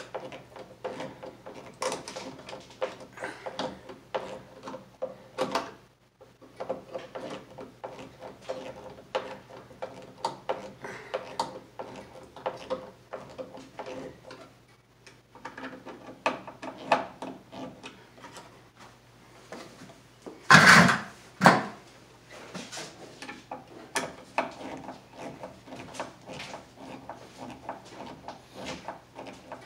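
Wood screw being turned by hand with a screwdriver, fastening a plastic electrical box to a wooden joist: a run of short, irregular creaks and clicks as the screw bites into the wood. Two louder knocks come about two-thirds of the way through.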